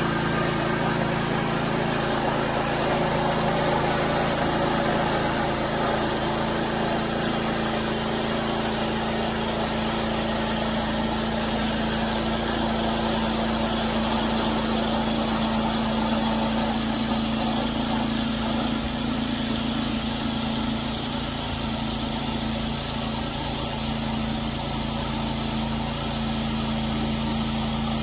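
Norwood Frontier OS-23 portable bandsaw mill running steadily, its engine holding a constant pitch while the band blade cuts along a poplar log.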